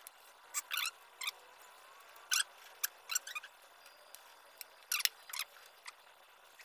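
Mango skin being peeled off by hand: about ten short, sharp tearing sounds at irregular intervals.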